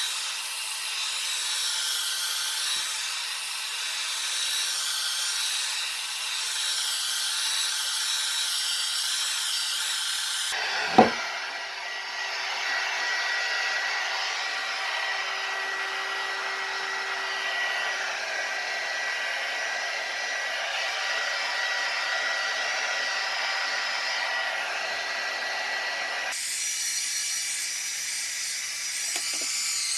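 Hot air gun blowing steadily. Its rushing noise changes character abruptly twice, about a third of the way in and again near the end. About eleven seconds in there is one sharp knock, the loudest moment.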